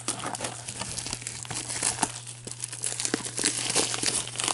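Clear plastic shrink wrap being torn and crumpled in gloved hands, a dense run of crinkles and crackles. A steady low hum sits underneath.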